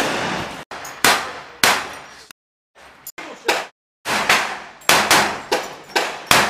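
FAMAS assault rifle firing blank cartridges indoors: a string of single shots, each ringing off the walls of a small room.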